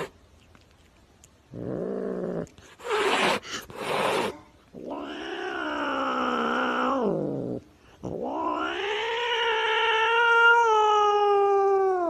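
Domestic cat yowling: a short call, two brief hissy bursts, then two long drawn-out yowls of several seconds each, the last one sliding down in pitch as it ends.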